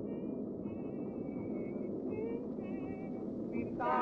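Steady rumbling ambient drone laid under the scene as sound design, with faint warbling high tones drifting over it. Near the end a louder wavering, pitched, voice-like sound comes in.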